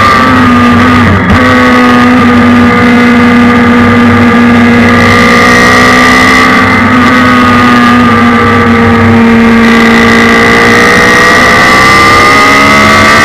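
Suzuki Hayabusa 1300 inline-four motorcycle engine in a race car, running hard at high revs, heard loud from onboard. There is a brief break in the note about a second in, then the pitch sags slowly through the middle and climbs again near the end.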